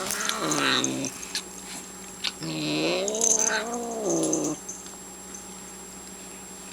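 Domestic cat growling while she chews food: two long, wavering growls, a short one at the start and a longer one of about two seconds in the middle, with small chewing clicks between them. The growling is aimed at another cat that is bothering her while she eats.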